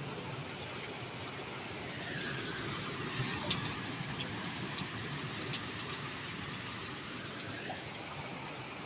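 Hurricane Milton's winds: a steady rushing hiss that swells a little a couple of seconds in, then eases, with a few faint ticks.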